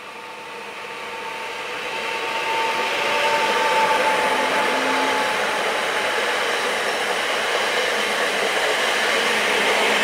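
Pesa Elf 2 (48WEc) electric multiple unit passing close by at speed: a rushing of wheels and air that builds over the first few seconds and then stays loud, with a thin steady whine in the first half.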